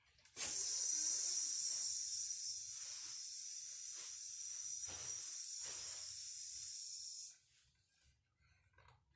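A steady high hiss that starts suddenly about half a second in, runs for about seven seconds and cuts off abruptly, with a few faint knocks in it.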